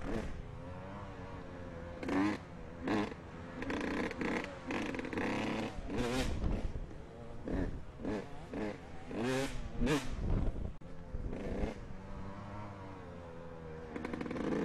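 Dirt bike engines on a motocross track, revving up and falling back over and over as the throttle opens and closes through the turns, with several sudden loud rushes of noise.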